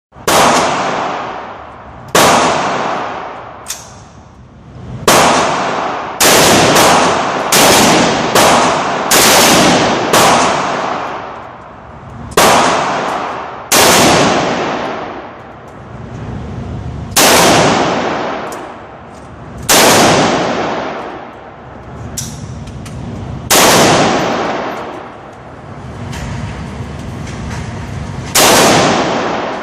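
AR-15 rifle being fired single shots, about fifteen in all at an irregular pace, with a quicker string of several shots well under a second apart in the first third; each shot rings off in a long echo.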